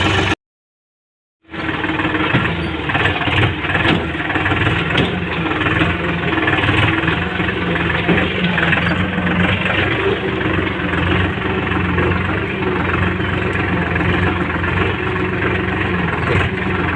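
Tractor engine running steadily at a low idle. It cuts out completely for about a second near the start.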